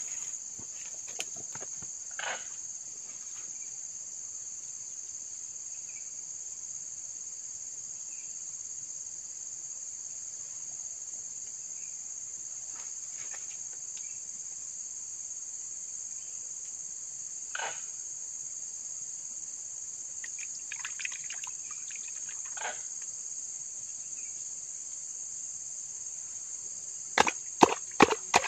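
A steady, high-pitched insect chorus. Near the end come several short, sharp splashes as hands work in the shallow muddy water.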